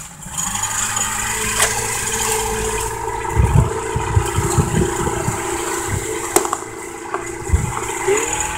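115 hp Evinrude two-stroke outboard motor running under way, its note picking up about half a second in and then holding steady. Low thumps come through in a cluster a few seconds in and once more near the end.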